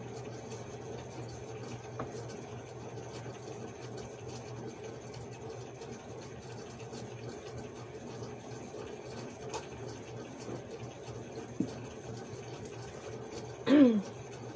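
Steady low room hum and hiss, with a few faint clicks from hands handling needle and thread. Near the end comes a brief vocal sound falling in pitch, like a short hummed 'mm'.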